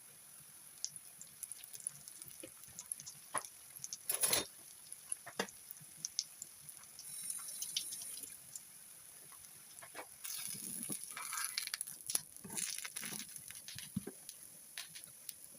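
Light kitchen handling sounds: scattered small taps and clicks, with a couple of short stretches of noise about seven and ten seconds in.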